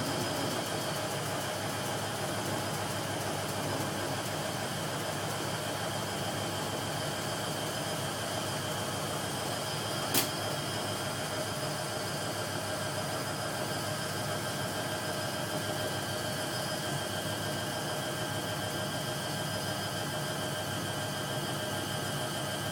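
Hoover 1100 De Luxe washing machine running steadily in its final rinse and spin, a constant motor whine over a rushing noise, with one sharp click about ten seconds in.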